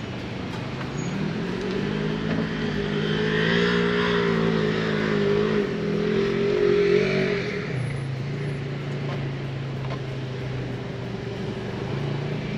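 Jeep engine running on an off-road trail. It climbs in pitch about a second in, holds higher revs for several seconds, then drops back to a low, steady run.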